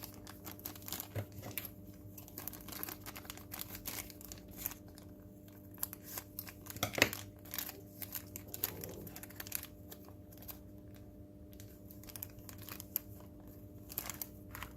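Small plastic kit parts and a cable being handled: scattered light clicks and rustling, with one sharper click about seven seconds in, over a faint steady hum.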